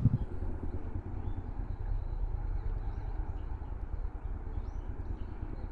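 Outdoor ambience: a steady low rumble, with faint short bird chirps scattered through it, a few more near the end.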